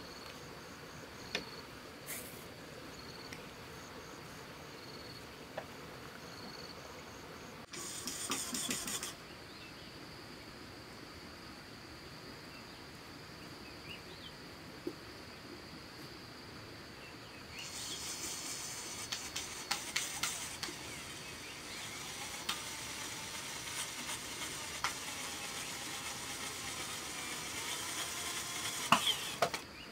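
Outdoor background of insects chirring steadily, with scattered light knocks and clicks; a louder high hiss comes in about two-thirds of the way through.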